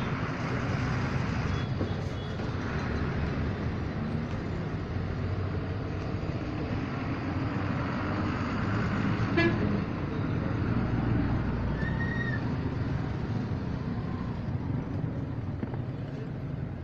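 Steady street traffic noise, with a couple of brief vehicle horn toots.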